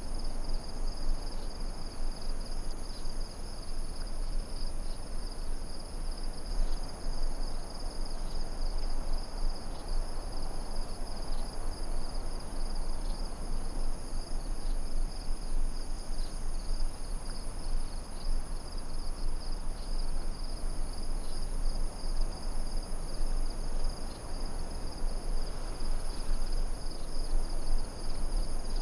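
Nature ambience sound effect: a steady chorus of crickets and other insects trilling high, over a constant low rushing noise.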